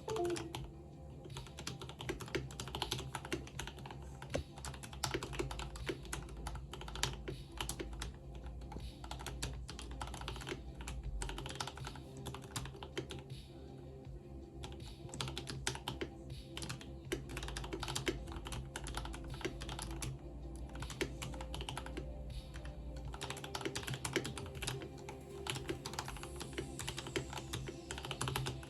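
Typing on a mechanical keyboard: a steady run of quick, irregular key clicks.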